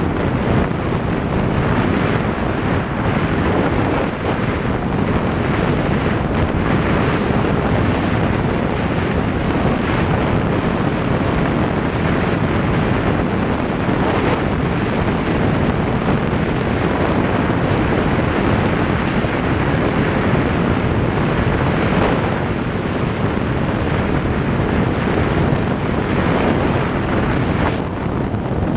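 Snowmobile riding at speed: heavy, steady wind rush on the microphone over the engine's drone.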